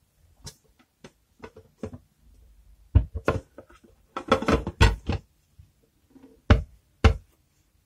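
Knocks and clatter as a purple coated cake pan is turned upside down onto a ceramic plate and set down with the cake inside, flipping it out. Separate sharp knocks come about three seconds in, in a cluster around four to five seconds, and twice near the end.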